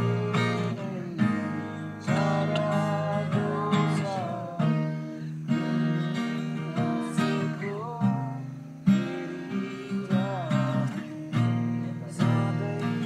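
Acoustic guitar strumming chords, with a melody line gliding up and down over it.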